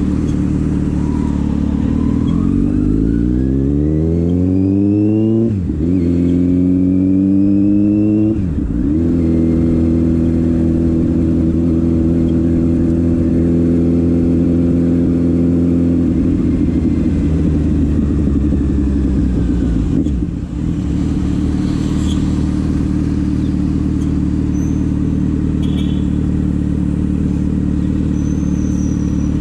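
2020 Kawasaki Z900's inline-four through an unbaffled SC-Project full exhaust, accelerating hard with revs climbing through two quick upshifts in the first nine seconds, then holding a steady cruise. About two-thirds of the way in the revs fall away as the bike slows, then settle to a steady low run.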